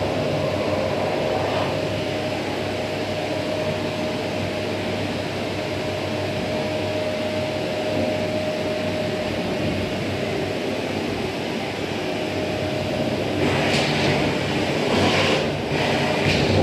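Vacuum cleaner running steadily, its motor giving a steady whine under the rush of air. In the last few seconds the whine drops away and the suction comes in repeated surges of hiss.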